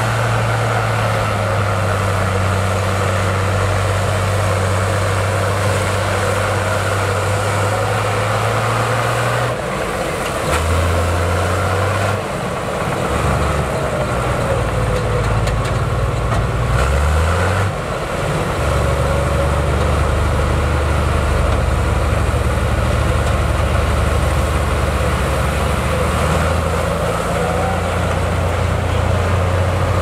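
Heavy diesel engine of earthmoving machinery running, its speed stepping up and down several times.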